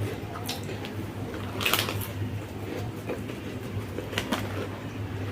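Eating sounds: snack food chewed and crunched, with scattered short clicks and crackles over a steady low hum.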